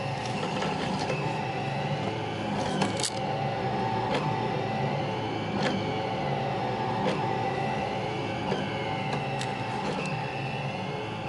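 Delta 3D printer's stepper motors whining in tones that slide up and down as the print head moves, over a steady low hum, with a sharp tick every second or two.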